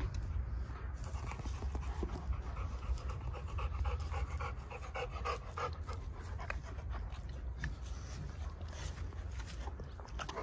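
An animal panting rapidly and rhythmically, close to the microphone.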